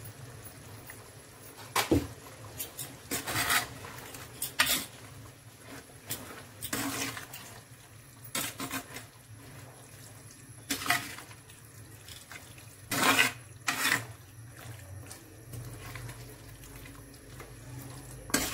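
A metal slotted spoon stirring thick, wet mutton curry in an earthen clay pot: squelching of the gravy with irregular scrapes and knocks of the spoon against the pot, over a steady low hum.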